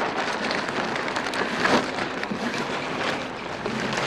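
Steady wind noise over the microphone as a P-Class dinghy's sail and rigging shake in the breeze, with scattered light clicks and taps, the clearest about a second and a half in.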